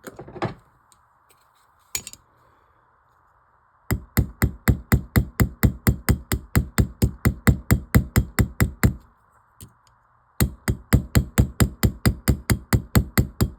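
Small hammer tapping rapidly and evenly, about five strokes a second, in two long runs with a short pause between them, peening the pivot pin of a straight razor being reassembled. A couple of single knocks come before the tapping starts.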